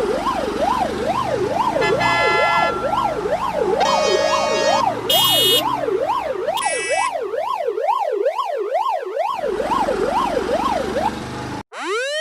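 Emergency-vehicle siren on a fast yelp, its pitch sweeping up and down about twice a second, with several short horn blasts laid over it and a second, higher yelping siren joining in the middle. It cuts off suddenly near the end and another siren starts winding up in pitch.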